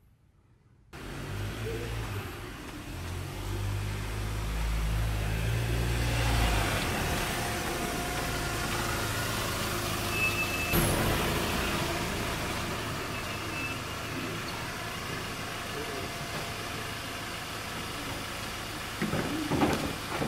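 Motor vehicle engine running steadily, with a deep rumble that is strongest in the first several seconds and then settles lower.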